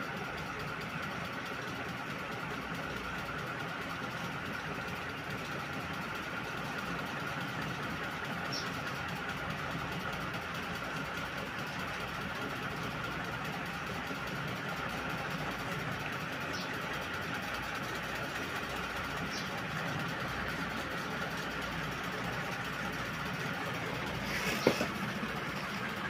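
Matsunichi CS-149 metal-bladed ceiling fan running at high speed: a steady whir of motor and air with a faint, even whine. A sharp click sounds once near the end.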